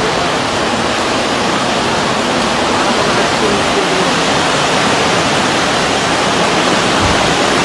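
Floodwater rushing down a city street as a fast torrent: a loud, steady rush of water.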